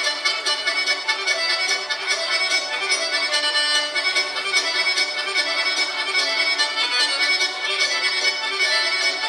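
Accordion playing a Serbian folk dance tune from Šumadija, a kolo accompaniment with a steady beat.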